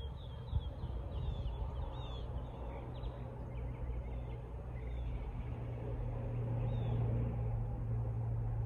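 Outdoor ambience of small birds chirping, a scatter of short high chirps over a steady low drone that swells a little in the second half.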